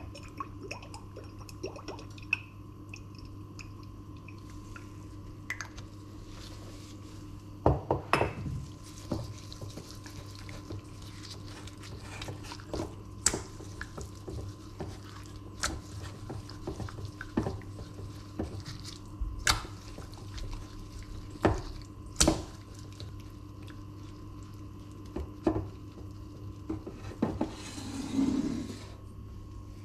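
Gloved hands rubbing olive oil and seasoning into a raw chicken breast in a stainless steel bowl: wet squishing, with scattered short knocks and clinks of the metal bowl. A steady low hum runs underneath.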